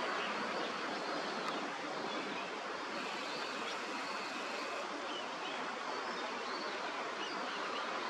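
Steady rushing noise of flowing water, with a few faint, short high calls over it.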